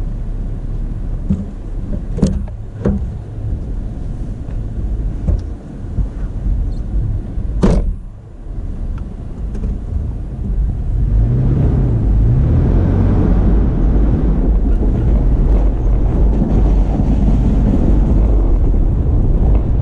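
Toyota FJ Cruiser's 4.0-litre V6 and tyres while driving a snowy dirt road, with a few sharp knocks in the first eight seconds. About eleven seconds in, the engine and road noise grow louder and steady.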